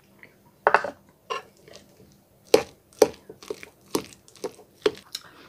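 Metal spoon stirring a thick mix of crème fraîche and crumbled blue cheese in a ceramic bowl: irregular short clicks and scrapes of the spoon against the bowl, about one or two a second.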